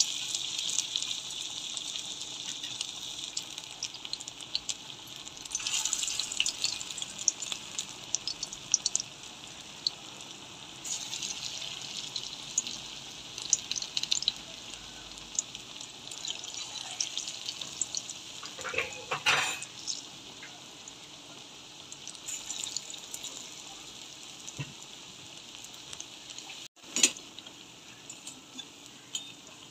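Fritters of leafy greens in lentil-paste batter deep-frying in hot oil in a kadai: a steady crackling sizzle that flares louder several times, loudest a little past the middle. The sound drops out for an instant near the end.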